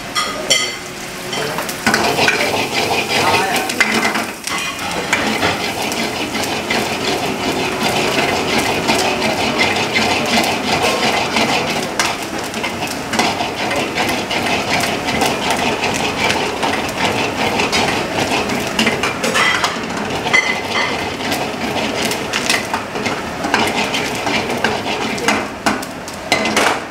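Sliced onions, green chillies and curry leaves sizzling in oil in a metal pan. A metal ladle stirs and scrapes through them, clinking and clattering against the pan over and over.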